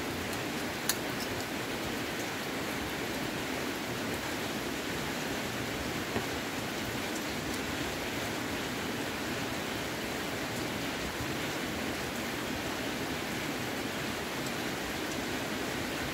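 A steady, even hiss of rain, with two faint clicks, about a second in and about six seconds in.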